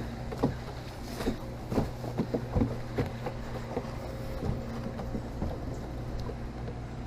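A steady low mechanical hum under scattered knocks, taps and rustles of handling.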